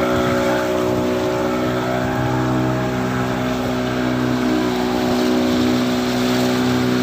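Engine of a small outrigger fishing boat running steadily at cruising speed, over a steady hiss of water rushing past the hull.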